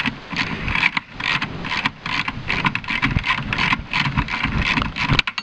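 Socket ratchet clicking in quick, uneven runs as the bolts of a car's boot-lid hinge assembly are worked loose; it stops abruptly near the end.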